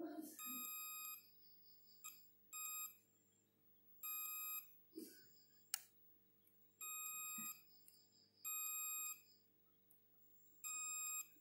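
Digital multimeter's continuity buzzer beeping six times, one steady high tone each lasting about half a second to a second, as the test probe is touched to the graphics card's power-phase MOSFETs. The beeping shows a short across the MOSFETs, which the repairer traces to a burnt IR3553M MOSFET. A sharp click of the probe tip against the board is heard about halfway through.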